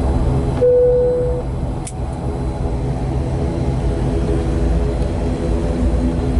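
Airliner cabin noise on the ground after landing: a steady low rumble of the engines and the aircraft rolling. There is a short steady tone a little after the start and a single click near two seconds in.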